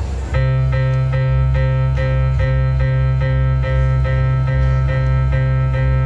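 Keyboard music accompanying a dance: a held chord over a deep bass, pulsing evenly about twice a second. It comes in just after the start.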